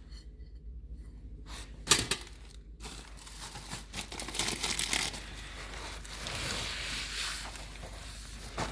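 Hands rummaging through rubbish in a dumpster: crumpling and rustling of bags and packaging. There is a single sharp knock about two seconds in, and the rustling runs on steadily from about three seconds.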